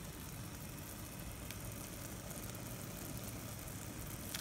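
Pot of fish soup boiling on the stove, a steady low bubbling rumble, with a faint click about a second and a half in and another near the end.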